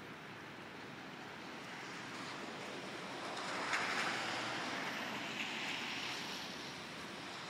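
Outdoor ambient hiss that swells louder for a few seconds in the middle, with two faint clicks.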